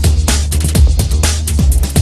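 Electronic dance music with a fast, driving beat and heavy bass.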